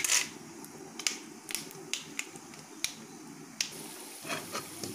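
Mustard seeds popping and spluttering in hot oil during a tempering: about eight irregular sharp pops over a low steady sizzle. A brief louder burst of frying comes right at the start as chana dal goes into the oil.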